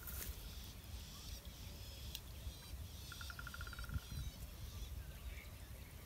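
Outdoor ambience by a pond: small birds chirping high, with a short, even, rapid trill of about a dozen notes about three seconds in, over a steady low rumble.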